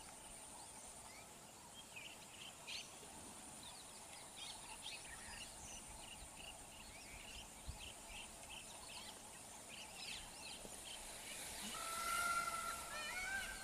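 Outdoor birdsong ambience: many small birds chirping in short calls over a faint steady high hum. Near the end a louder bird holds one note, then breaks into repeated arching calls about two a second.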